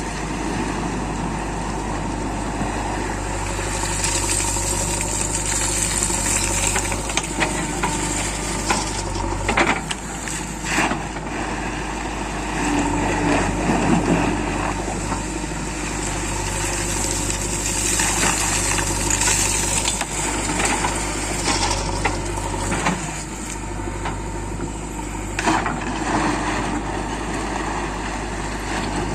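Diesel engine of a JCB 3DX backhoe loader running steadily under work, with a few sharp knocks and clanks.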